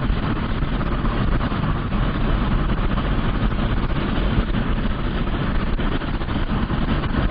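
Steady rumbling noise of a vehicle on the move, heard from inside the cabin, with no distinct events.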